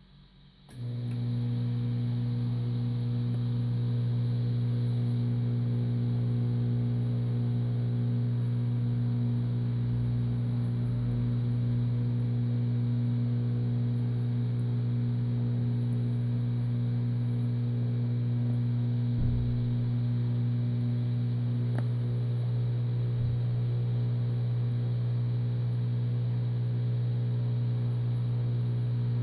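An electric machine switches on about a second in and then runs with a steady, even hum, with a few faint clicks later on.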